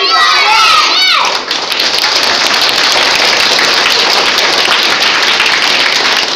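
A child's voice ends a line, then steady applause from many clapping hands starts about a second in and carries on.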